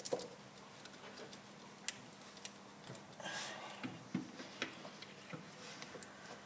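Scattered faint clicks of rubber and plastic ignition parts being handled: gloved hands pushing an HT lead back onto the distributor cap, with a short rustle about three seconds in.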